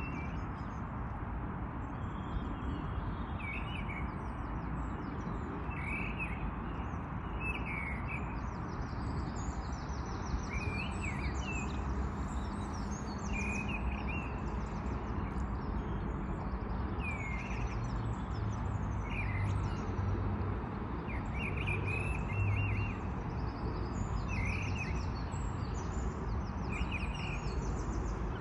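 Several birds singing in a morning chorus: one repeats a short call every second or two, while others add higher, faster trills. Underneath is a steady low background rumble.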